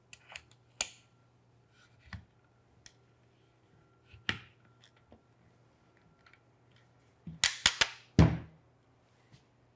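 Peak Design Travel Tripod being handled: sparse clicks and taps as the center column is slid back into the tripod's hub, then a quick run of clicks and a heavier thunk near the end.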